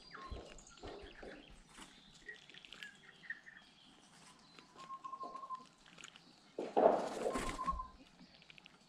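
Tūī calling at close range: scattered clicks and chirps with short, pure whistled notes, and a louder rasping, rustling burst about seven seconds in.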